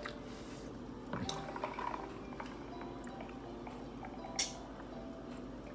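Soft, wet eating sounds of someone chewing food, with small clicks and one sharp click about four and a half seconds in.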